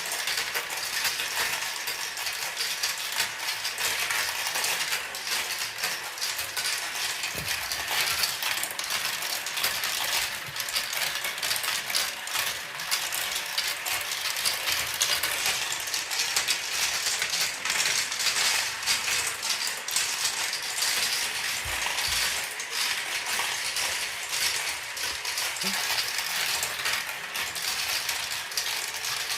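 Marbles rolling and clicking down a plastic marble run toy's tracks in a dense, continuous clatter of small clicks.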